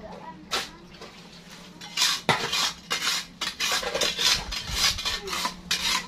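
Metal shovel blades scraping and scooping into sandy soil: one stroke about half a second in, then a quick irregular run of scrapes from about two seconds on.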